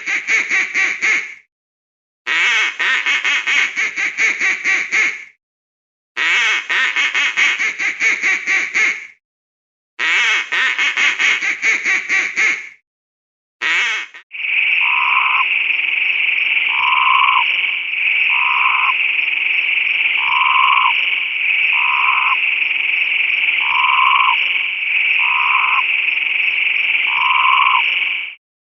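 Animal calls: bouts of rapid pulsed calls a few seconds long with short gaps between, then a steady high chorus with a lower call repeating about every second and a half.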